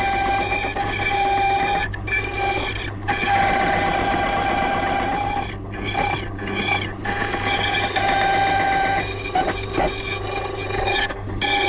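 Silca key-cutting machine running, its cutter machining a brass bullet ward key blank as the original key is traced: a steady ringing whine over the motor's hum, breaking off briefly several times as the cut eases.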